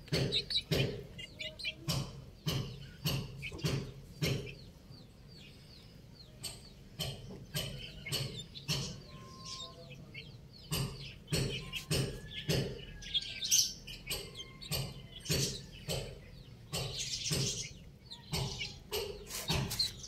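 Young chickens feeding on scattered soil on a concrete floor: irregular sharp taps and clicks of beaks pecking the ground, with high chirping peeps between them. The pecking eases off for a few seconds partway through, then picks up again.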